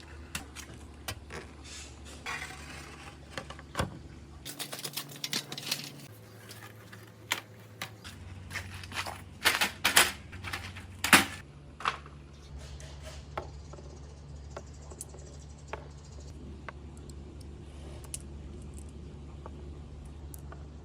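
Marbles rolling and clicking along a handmade marble run of wooden blocks with an orange circular slope. Sharp clacks come thick and fast in the middle, the loudest about ten and eleven seconds in, and thin out to scattered ticks near the end.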